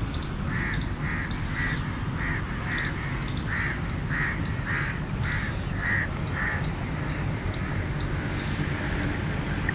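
A crow cawing in a quick run of about a dozen calls, roughly two a second, stopping about six and a half seconds in.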